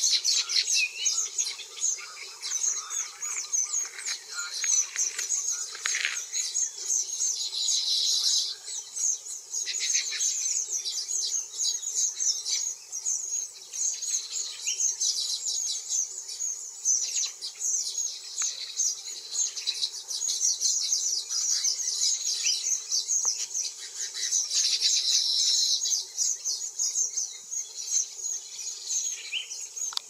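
Baya weavers chattering: a dense run of quick, high notes, with a longer drawn-out note about 8 seconds in and again near 25 seconds.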